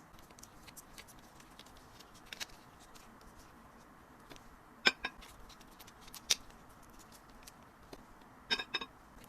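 Sparse light clicks and taps from small perfume sample bottles and packaging being handled, with faint ticks between. There is a sharp pair of clicks about five seconds in, one more a second later, and a short cluster near the end.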